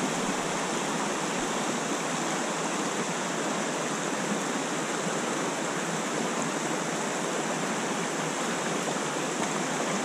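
Stream water rushing steadily over a shallow rocky riffle.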